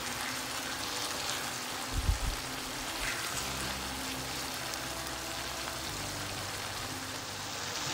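Chickpea and potato curry (chola bhuna) sizzling steadily in a frying pan as it cooks in its masala, with a wooden spatula in the pan. A brief low bump about two seconds in.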